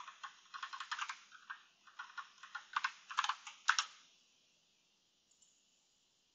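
Computer keyboard typing: a quick run of keystrokes for about four seconds, then it stops.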